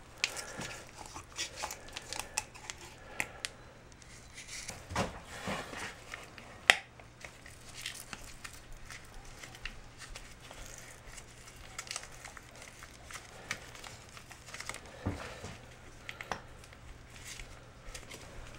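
Gloved hands packing grease into a new CV joint on an ATV drive axle: a plastic grease packet crinkling and rustling, with scattered light clicks and a few sharper taps.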